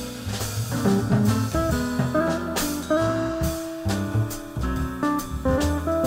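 Instrumental jazz from a quartet of guitar, keyboard, drums and upright bass, with the guitar playing over a steady drum and bass groove.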